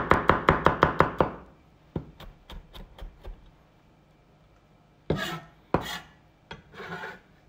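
Chef's knife mincing garlic on a wooden cutting board: a fast run of sharp knocks, about seven a second, stopping a little over a second in, then a few lighter taps. Near the end the blade scrapes across the board two or three times, gathering the minced garlic.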